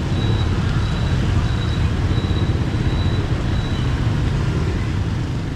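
Steady rushing traffic noise heard from a moving bicycle on a rain-soaked city street: a low rumble of motorbike and car engines under the hiss of tyres on wet road. A faint high whine comes and goes throughout.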